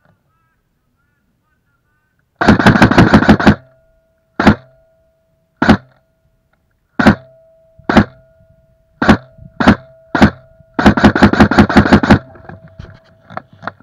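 Airsoft gun firing: a rapid full-auto burst of about ten shots, then single shots roughly a second apart, then a second long rapid burst. Fainter cracks follow near the end.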